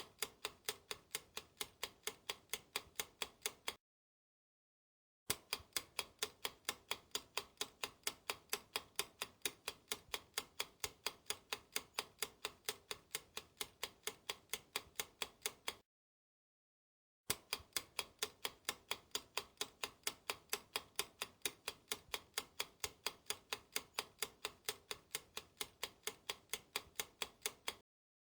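Clock ticking sound effect, an even run of sharp ticks at about four a second. It cuts out twice for about a second and a half of dead silence.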